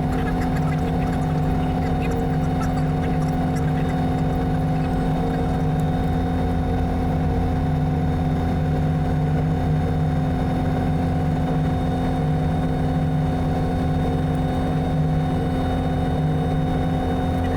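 Robinson R44 Raven I helicopter's engine and rotor running at a steady speed, a constant drone with several steady tones that do not change. By the video's timecodes it is on the ground after landing, during the end-of-flight checks.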